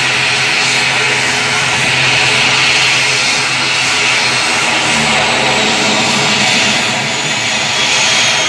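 Turboprop airliner's engines running steadily as it stands on the apron: a loud, even hum with a high whine above it.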